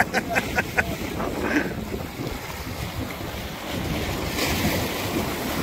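Lake Erie waves washing against the rock blocks of a breakwall, with wind buffeting the microphone; a louder wave hisses in about four seconds in.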